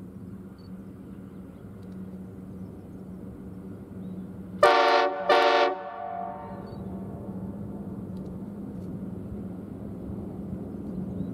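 Diesel locomotive horn sounding two short blasts in quick succession about five seconds in, over the steady low drone of the approaching grain train's diesel engines, which grows slowly louder.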